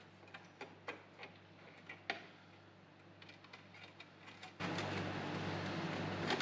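Faint scattered clicks and taps as a steel wheel-arch repair panel is handled and offered up to the van's wing. About four and a half seconds in, a steady mechanical hum and rush starts abruptly and keeps going, much louder than the taps.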